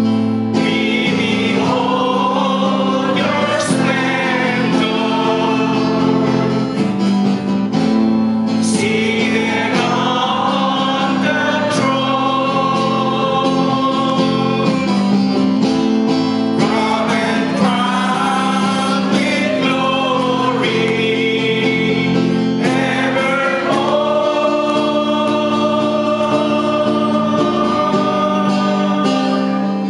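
Praise and worship song: many voices singing together to strummed acoustic guitar accompaniment.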